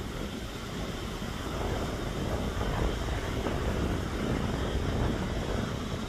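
Boeing 777-300ER's GE90-115B turbofans running on the runway, a steady low rumble, with wind buffeting the microphone.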